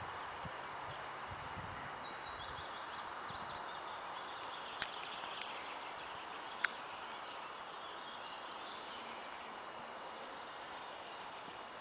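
Quiet outdoor ambience: a steady hiss with faint high bird chirps, and two sharp clicks about five and six and a half seconds in.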